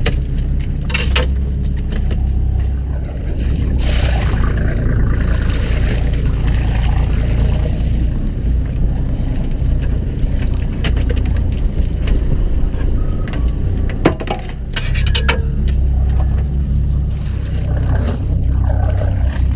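Fishing boat's engine running steadily with a low drone, with a few sharp knocks and clatters on deck over it.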